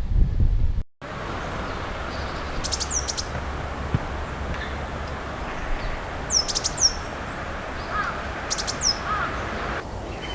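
Coal tit calling: three bursts of very high, thin notes a few seconds apart, each a quick run of ticks ending in a short downward-sliding note, over steady outdoor background noise.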